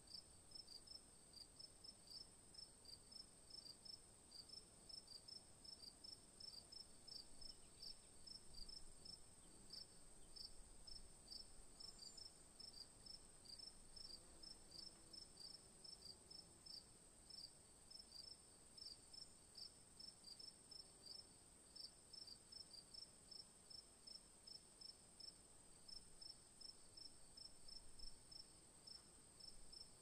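Faint night-time insect chorus: a steady high-pitched buzz with a chirp repeated about three times a second, pausing briefly now and then.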